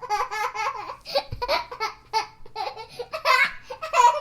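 A young child laughing hard: several bouts of quick, repeated ha-ha pulses with short pauses between them.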